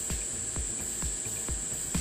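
TIG welding arc with a steady high-pitched whine, under background music with a low beat about twice a second.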